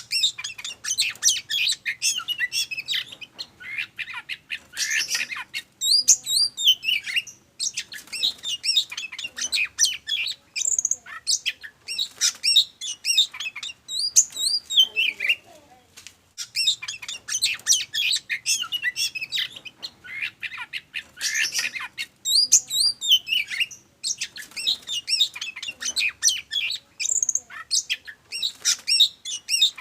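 Oriental magpie-robin singing a rapid, varied song of chirps, whistles and harsh notes, in bursts separated by short pauses.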